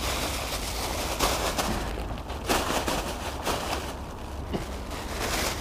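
Plastic bag rustling and crinkling with irregular crackles as fish are handled and pulled out of it, over a steady low rumble.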